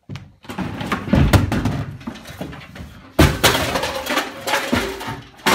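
Thumps and clattering of a pedestal and props being knocked over and handled, with a loud bang about three seconds in and another near the end.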